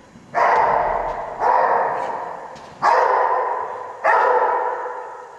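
Australian Shepherd barking four times, each bark sudden and loud and echoing away over about a second.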